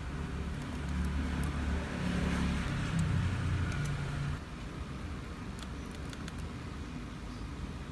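A low rumble with a hiss that swells over the first few seconds and drops away about four seconds in.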